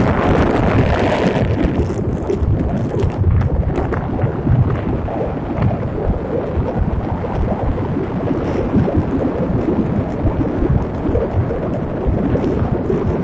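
Steady wind rumble on the microphone of a camera riding in a moving vehicle, mixed with road noise.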